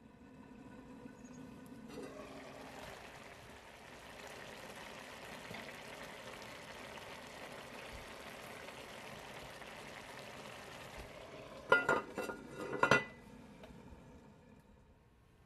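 Rice and its cooking liquid bubbling in an enamelled cast-iron pot, a steady hiss as the water cooks down. About twelve seconds in, a few sharp clinks as the pot's lid is set back on.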